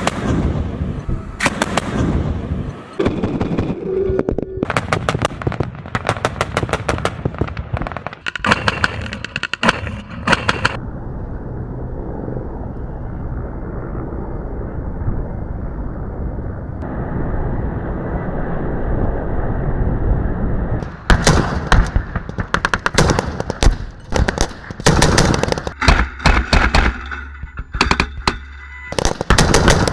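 Military automatic weapons fire, mostly from vehicle-mounted guns: rapid strings of shots, one burst after another. In the middle the firing gives way to about ten seconds of steady helicopter engine and rotor noise, and then the bursts start again.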